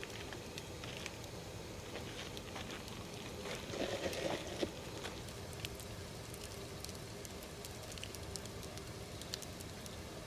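Wood campfire of thick logs over charcoal crackling, with scattered small pops and a louder spell of crackling around four seconds in.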